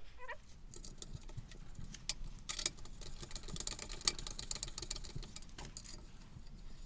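Hand screwdriver turning a screw into a hydrofoil's rear wing: faint, irregular small clicks and ticks as the driver and screw turn.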